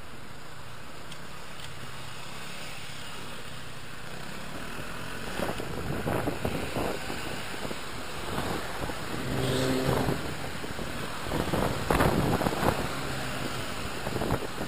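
Wind buffeting the microphone while riding in road traffic, over a steady rush of traffic noise. About five seconds in, the buffeting turns gusty and uneven and grows louder, with a brief low pitched sound just before the strongest gusts.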